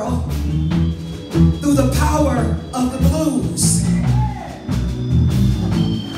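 Live amplified music: a singer's voice over low bass notes and drums, with a cymbal-like crash about four seconds in.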